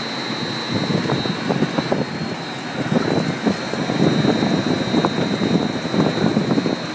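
Rotary die cutting and slitting machine running, its slitting section cutting a self-adhesive label web into narrow strips: a steady mechanical running noise with a thin high-pitched whine, overlaid by a dense, irregular crackle that grows thicker about a second in.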